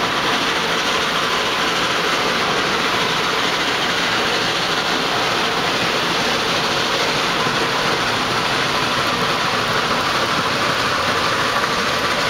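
Steady hiss and rumble of a steam train running at close range, as a Shay geared steam locomotive draws alongside on the next track.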